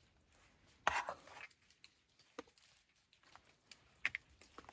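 A metal spoon serving curry into bowls: a short scrape about a second in, then a few light taps and clicks.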